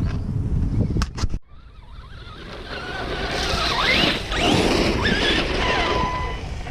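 Electric motor of a Traxxas Slash RC truck whining, its pitch sweeping up and down as it speeds and slows, over a gritty hiss of tyres on dirt. Two sharp clicks about a second in, then the sound breaks off abruptly before the motor noise builds again.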